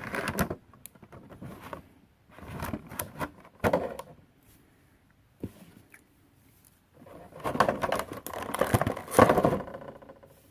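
Hands handling a plastic action figure and its packaging: rustling and clicking in two bouts, a few seconds in and again near the end, with a sharp click or two between.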